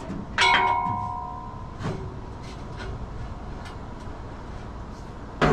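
A loud metal clang that rings briefly, then a few lighter metallic clicks and knocks, and another clang near the end: a tire iron working against the flywheel of a Detroit Diesel 12V71 engine to bar it over by hand.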